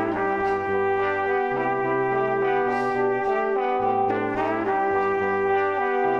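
Background music: sustained melody notes over a low bass line that changes note about every second or so.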